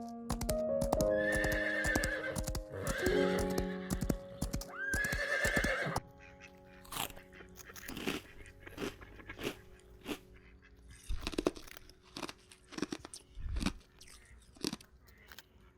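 A horse whinnying three times, each call with a wavering, shaky pitch, over soft background music. About six seconds in the calls stop, and a run of irregular crunching clicks goes on under the music.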